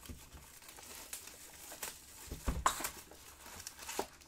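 Plastic shrink wrap crinkling and tearing as it is pulled off a cardboard trading-card hobby box, with the box then being opened. A few sharp clicks and knocks of handling, the loudest about two and a half seconds in.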